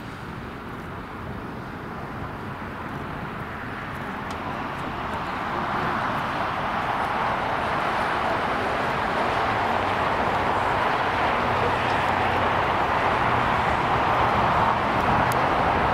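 Jet engines of an El Al Boeing 787 taxiing past: a steady rushing that grows louder over the first several seconds as the airliner comes near, then holds.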